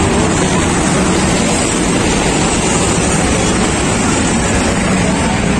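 Steady, loud rushing noise with a low rumble underneath, holding even throughout with no distinct events.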